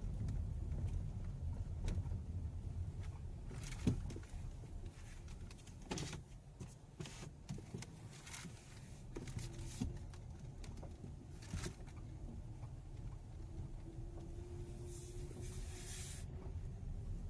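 Hyundai Elantra driving over a rough road, a steady low rumble with several sharp knocks a couple of seconds apart, the loudest about four seconds in. The knocking is typical of a worn engine mount letting the engine move.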